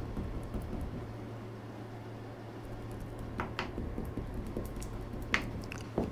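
Paintbrush dabbing and working wet epoxy resin into fiberglass cloth, with soft squishing and a few sharp clicks in the second half, over a steady low hum.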